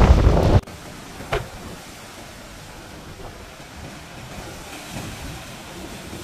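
Wind buffeting the microphone cuts off abruptly under a second in. Then comes the steady wash of surf as the sea surges and foams in a coastal blowhole in the limestone cliffs, with a brief knock a little over a second in.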